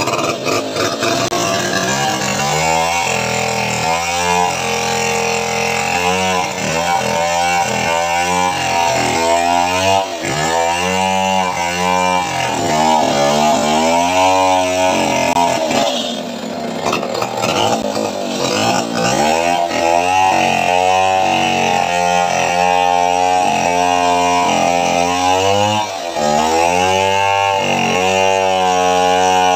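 A small engine running and revving up and down over and over, about once a second, with a short lull near the middle.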